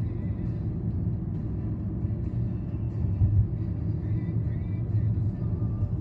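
Steady low rumble of car road and engine noise heard inside the cabin of a moving car, with faint music playing over it.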